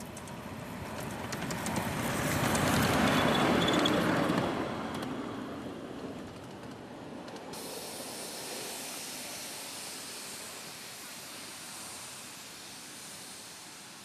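A ride-on backyard miniature train passing close by: a hissing, rushing rolling noise that builds, peaks about three seconds in and fades away. A fainter steady hiss follows.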